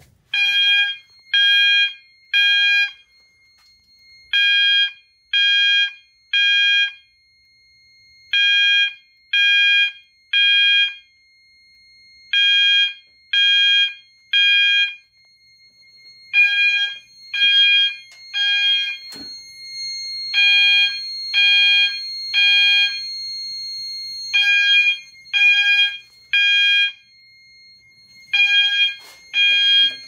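System Sensor MASS24LO fire alarm sounder set to 800 Hz, sounding the temporal code-3 pattern: groups of three short tones, a new group about every four seconds. From about halfway a faint steady high tone runs underneath.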